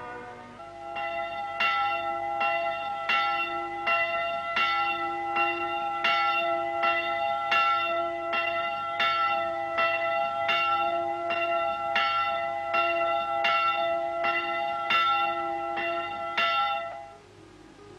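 A single church bell rung in quick, even strokes, about two and a half a second, each stroke bringing back the same ringing notes, which hang on between strokes. It cuts off about a second before the end.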